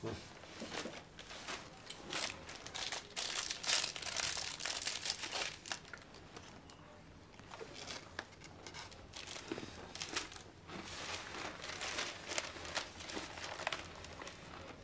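Newspaper rustling and a small food wrapper crinkling as it is handled and opened, in irregular runs of short crackles with a lull about six seconds in.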